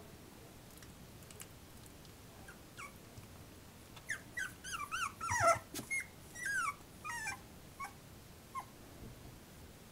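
A twenty-day-old puppy whimpering and squeaking: a run of short, high cries that bend up and down, starting about four seconds in and loudest midway, with a few fainter cries after.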